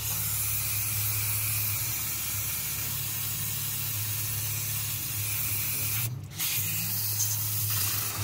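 Aerosol spray can spraying in a long, steady hiss, stopping briefly about six seconds in, then spraying again.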